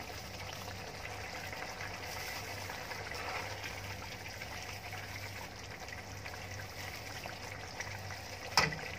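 Beef pasanday simmering in a thin masala gravy in an open wok, a steady bubbling as the last of the cooking water boils off. A single sharp tap comes near the end.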